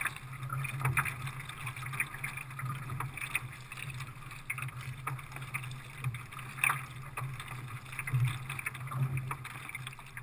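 Water lapping and splashing against the hull of a Zegul Baidarka sea kayak as it moves through choppy lake water, with irregular small splashes over a steady low hum.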